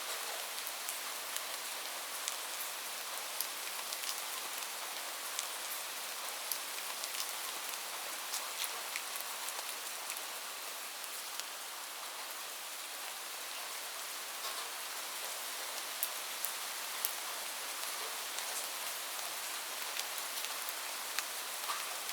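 Steady heavy rain falling on a roof: an even hiss with many individual drops ticking sharply through it.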